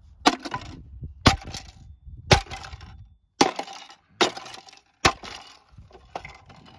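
A metal bar striking an old plastic headlight assembly, about seven sharp blows roughly a second apart, each a cracking knock with a short ring, as the housing and lens are broken apart.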